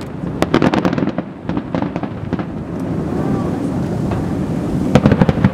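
Aerial firework shells bursting in a rapid run of bangs and crackles. The reports thin out for a couple of seconds in the middle, then a dense cluster comes again near the end.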